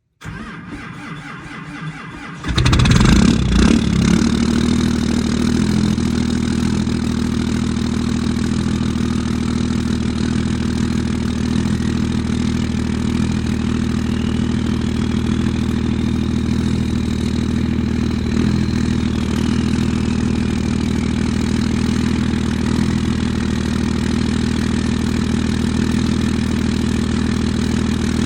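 A Ram 2500's Cummins inline-six turbo diesel cold-starting in freezing weather: it cranks for about two seconds, catches loudly about two and a half seconds in, flares and settles into a steady idle. A faint turbo whistle climbs in pitch over several seconds, holds, then falls away a little before twenty seconds in.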